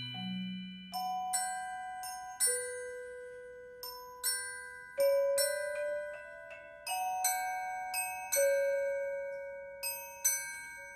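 Mallet percussion ensemble playing a slow, sparse passage: high bell-like notes struck one or two at a time, about once a second, each left to ring on long.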